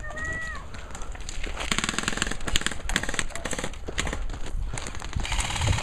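Airsoft rifles firing rapid full-auto bursts: fast trains of sharp clicking pops from several guns, coming in repeated volleys.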